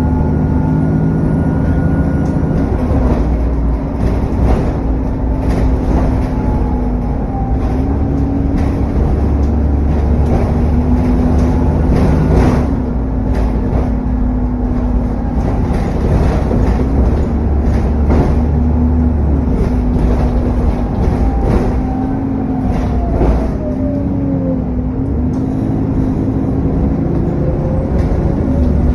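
Bus under way, its engine running with the cooling fan thrashing and a turbo whine that rises and falls in pitch, along with frequent rattles.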